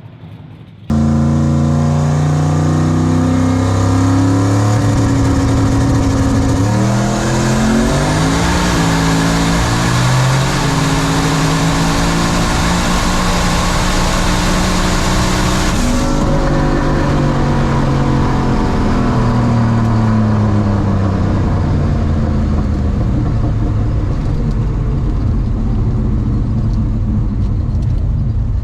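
Turbocharged Crown Vic drag car making a full-throttle drag-strip pass. The engine comes in suddenly and climbs in pitch, stepping down twice at upshifts. About two-thirds of the way through it goes off throttle, and the engine note falls away as the car slows.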